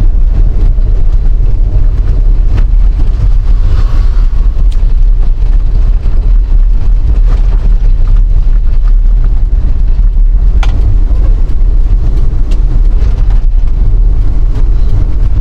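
Steady low rumble of a car being driven slowly downhill, with a few short ticks and knocks.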